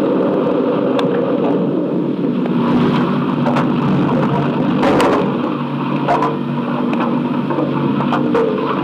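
Truck-mounted concrete mixer running and discharging concrete down its chute into a crane skip: a steady engine hum with several sharp knocks.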